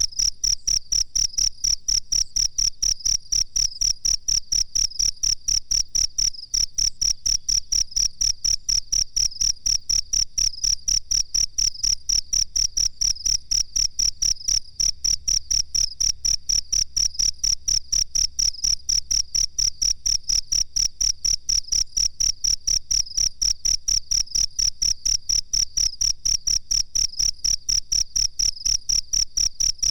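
Cricket chirping continuously in a fast, evenly spaced pulse train with a single high pitch.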